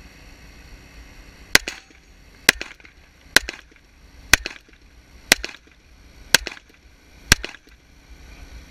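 Pistol shots fired one at a time: seven sharp cracks about a second apart, each followed by a short echo.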